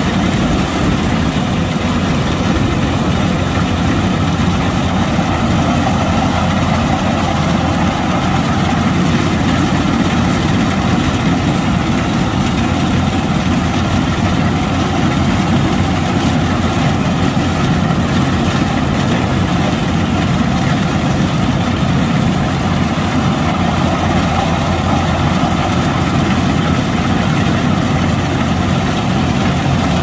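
Kubota DC-105X combine harvester's diesel engine running steadily at a constant, unchanging pitch.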